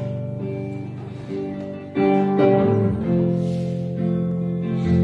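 Acoustic guitar and double bass playing the instrumental introduction of a song, with notes and chords struck every half second or so.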